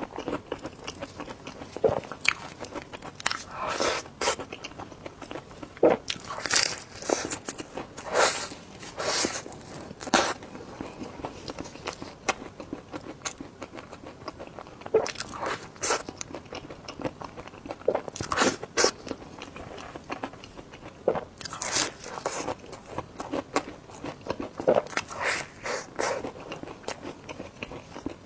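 Close-miked eating sounds of someone biting and chewing dessert food: irregular bites and mouth clicks, in clusters every second or so.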